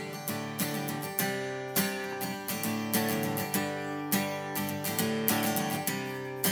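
Acoustic guitar strummed in a steady, even rhythm: background music.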